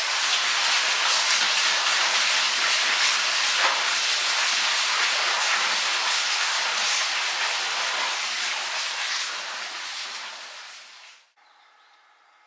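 Steady rush of flowing water, an even hiss. It fades about ten seconds in and then drops away suddenly.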